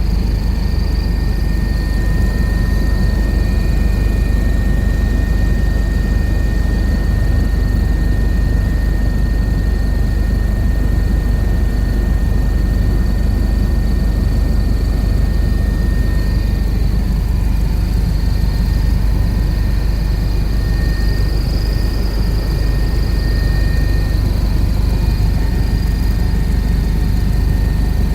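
Helicopter in flight heard from aboard: a steady, loud rumble of rotor and engine with a constant high whine over it.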